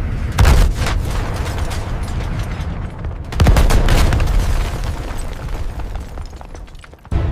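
Heavy blasts with a deep rumble between them: one about half a second in and a bigger one about three and a half seconds in, then a fading roar.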